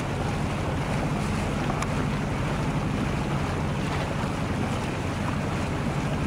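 A Westerly Centaur yacht's inboard engine running steadily, a low pulsing hum, as the boat motors along with its sails furled, with water washing past the hull and wind on the microphone.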